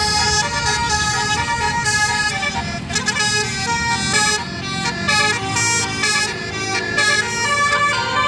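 A tour bus's 'telolet basuri' multi-trumpet musical air horn playing a tune, stepping from note to note with several short breaks, over the low rumble of the bus's engine.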